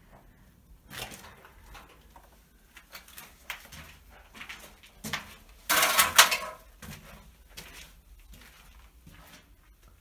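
Footsteps and scuffs on a debris-strewn concrete floor in a small brick room, irregular knocks and shuffles, with a louder clatter lasting under a second about six seconds in.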